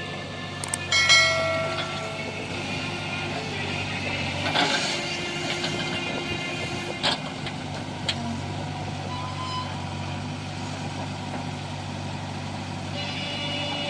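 Heavy diesel construction-vehicle engine running steadily. A short high-pitched sound comes about a second in, and a few sharp knocks follow.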